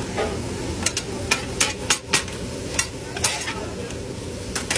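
Two metal spatulas chopping and scraping thin-sliced steak on a flat-top griddle: sharp, irregular clacks of steel blade on the steel plate over a steady sizzle of the meat frying.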